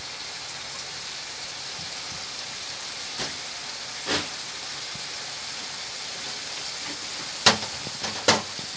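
Quail pieces in a thick pepper-masala gravy sizzling steadily in a nonstick frying pan. There are a few sharp clicks, the two loudest near the end.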